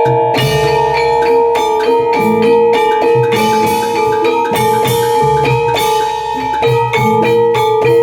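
Javanese jaranan gamelan accompaniment: quick struck metallophone and gong-chime notes over hand-drum strokes, with one long held tone running underneath.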